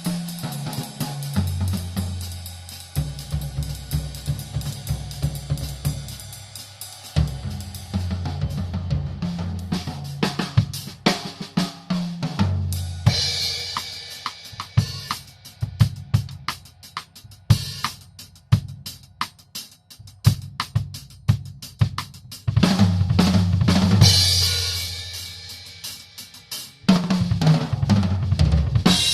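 Tama Starclassic Walnut/Birch drum kit being played. Tom fills step down in pitch from the high toms to the floor tom, mixed with bass drum, snare and hi-hat strokes. Crash cymbals ring out about 22 seconds in and again near the end.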